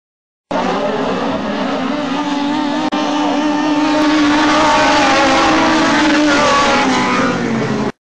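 Several midget race car engines running hard together, their pitch wavering up and down as they work through the turn. The sound starts suddenly, drops out briefly about three seconds in, comes back a little louder, and cuts off just before the end.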